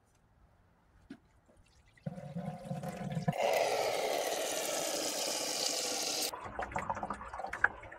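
Copper sulfate solution poured from a glass beaker into a towel-covered plastic bucket. A low rush starts about two seconds in, becomes a steady pouring stream a second later and stops abruptly around six seconds. The liquid is being drained off the copper sulfate crystals.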